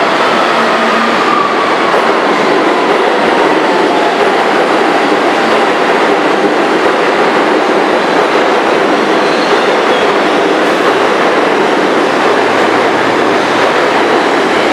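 A New York City subway train pulls into the station and slows to a stop. A faint electric motor whine falls in pitch over the first few seconds, above the steady rumble and rattle of wheels on rail.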